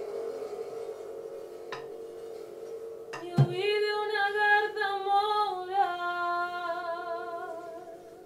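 A steady low drone, then about three seconds in a woman's voice enters and holds one long, slowly wavering sung note for about four seconds, with a soft thump as it begins.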